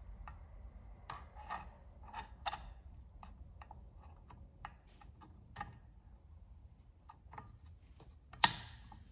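Scattered light metallic clicks and clinks as a spanner-type clutch holder is worked onto the clutch bell of a scooter's CVT, with one sharp clack near the end.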